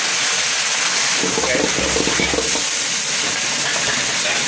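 Leafy greens sizzling as they are stir-fried in a hot wok over a gas burner, with a metal spatula scraping and turning them.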